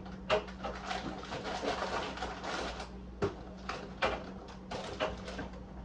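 Kitchen handling noise during cooking: scattered sharp clicks and knocks, several a second at times, over a steady low hum.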